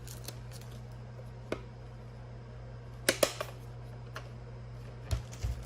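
Box contents being handled during unboxing: a few scattered light clicks and taps, with two sharper clicks about three seconds in, over a steady low hum.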